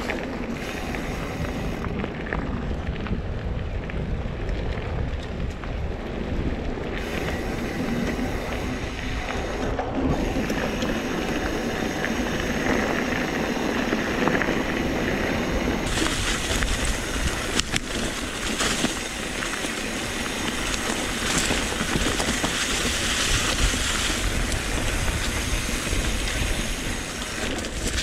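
Mountain bike riding downhill over a gravel track: tyres crunching on loose gravel and wind buffeting the rider-mounted action camera's microphone, getting hissier about halfway through.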